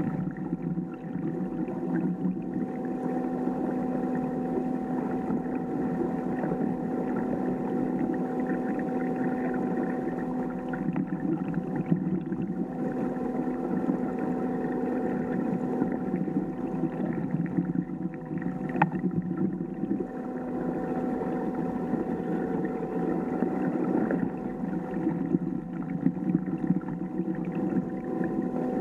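Electric kayak motor running steadily with a constant whine, over continuous rushing and lapping of water along the moving hull.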